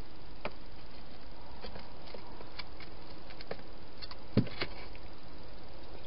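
Wild hedgehogs eating at a plastic-box feeding station: scattered small clicks and crunches over a steady hiss, with one dull knock a little after four seconds in, the loudest sound.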